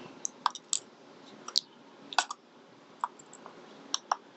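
Small, sharp metal clicks and taps, irregular and about nine in all, as tiny driver pins are worked out of a small pin tumbler lock's housing.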